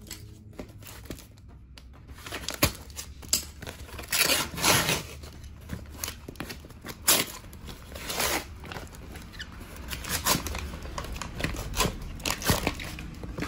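Brown kraft paper wrapping being torn and crumpled off a cardboard parcel by hand, in a string of irregular rips.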